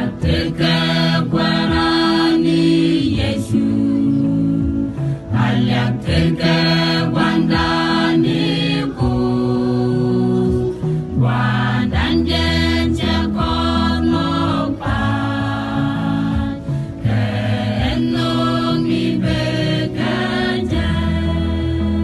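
Choir of men and women singing a Christian gospel song together in harmony, with steady held low notes underneath.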